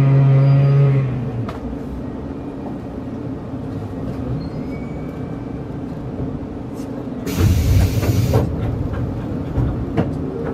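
Cabin sound of a JR Kyushu 783 series limited express train coming to a stop. A steady electric hum made of several tones cuts off about a second in, leaving a low rumble. About seven seconds in, a hiss of compressed air lasts about a second, followed by a few light knocks.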